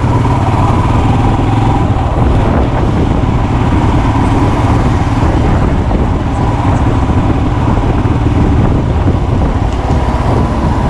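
Royal Enfield Himalayan's 411 cc single-cylinder engine running steadily while the motorcycle is ridden at low revs in third and fourth gear, heard from the rider's position.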